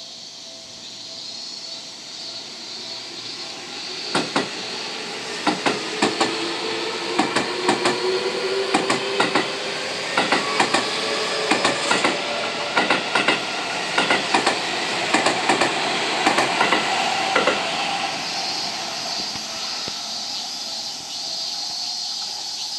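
Seibu 20000-series electric train passing close by. Its wheels clack in pairs over the rail joints, and the traction motors whine, rising in pitch as it gathers speed. The clacking starts a few seconds in, grows louder, and dies away near the end as the train passes.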